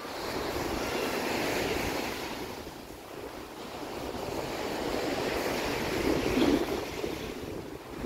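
Small waves washing up on a sandy beach, the surf swelling and falling back twice, with wind buffeting the microphone.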